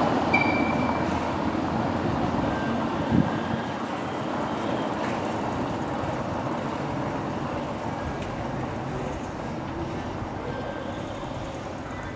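A Volkswagen car drives past over a cobblestone street with tram tracks. Its tyre and road noise is loudest at first and slowly fades as it moves away, with a single thump about three seconds in and a brief high ring near the start.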